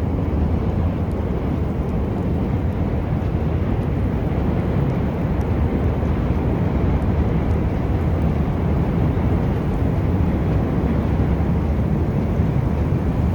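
Steady low rumbling of snowstorm wind buffeting the microphone.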